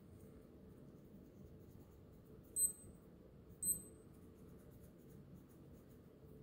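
Two short high-pitched electronic beeps about a second apart from an SKMEI digital watch, the kind of beep a button press on the watch gives, over faint room hiss.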